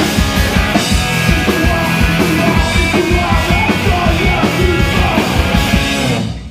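Live punk rock band playing loud, with distorted electric guitars, bass and drums pounding a steady beat; the song cuts off near the end.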